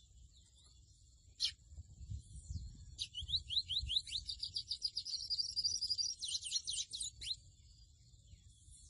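A seedeater (mochuelo, 'pico de plata azul') singing: a single sharp note, then about three seconds in a run of quick slurred whistles that speeds up into a high trill and ends in a few looping notes, about four seconds of song in all. A faint steady high tone runs underneath.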